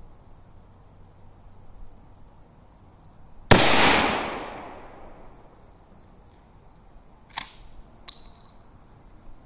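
A single 12-gauge pump shotgun blast about three and a half seconds in, its echo fading over a second or so. A few seconds later come two short metallic clacks, the second with a brief ring.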